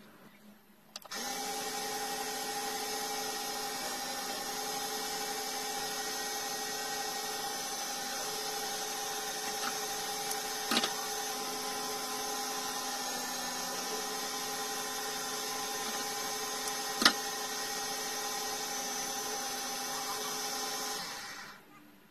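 Lathe motor running at a steady hum with the handle spinning. It switches on about a second in and runs down near the end, with two sharp clicks partway through.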